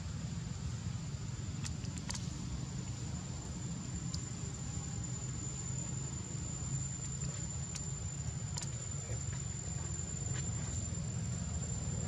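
Insect drone: one steady high-pitched tone, unbroken, over a low rumbling background, with a few faint clicks.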